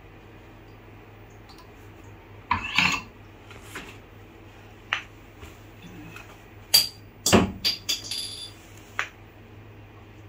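Handling noise from a boom stand microscope's metal and plastic parts as the boom arm and head are taken off the pillar and moved: scattered sharp clicks and knocks, with a louder clatter of several knocks about seven seconds in.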